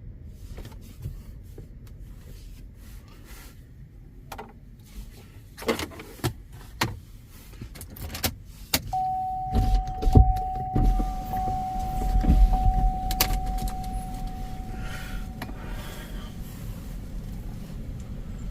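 Car handling sounds: scattered clicks and knocks. About halfway through, a steady electronic tone sounds for about six seconds over a loud low rumble.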